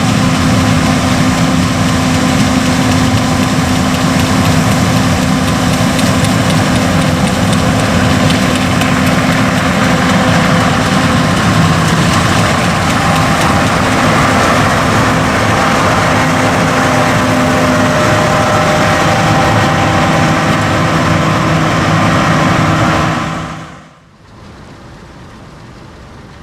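Diesel engine of heavy harvesting machinery running steadily under load, with a steady multi-tone hum. It drops away suddenly about 23 seconds in, leaving faint steady field noise.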